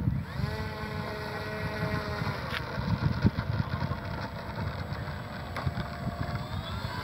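An RC plane's Sunnysky 2820 brushless electric motor is spinning an APC 10x7 propeller at low throttle while the plane taxis, giving a steady whine. The whine drops in pitch at the start and rises again near the end. Wind buffets the microphone.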